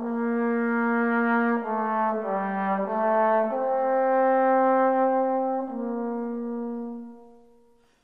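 Music: slow held chords that change every second or two, fading out near the end.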